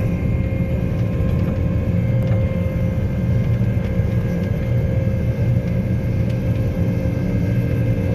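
Combine harvester engine running steadily while the machine travels in 2nd gear, with a constant howl from the drivetrain on top of the low engine rumble.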